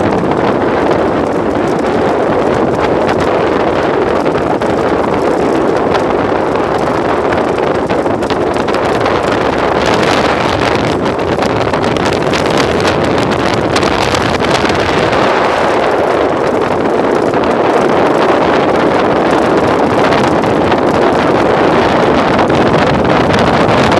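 Steady wind noise buffeting the microphone aboard a small wooden motorboat under way on a river, mixed with the even rush of water and engine noise.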